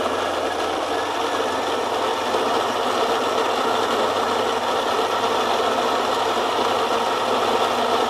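Baratza Vario Plus burr grinder running a timed grind, its 54 mm ceramic flat burrs grinding whole coffee beans at a coarse French press setting. A steady motor hum under a continuous grinding noise.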